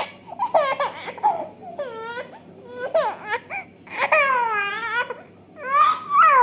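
Five-month-old baby's voice: a run of about six short, high, whiny cries with sliding pitch, the longest about four seconds in.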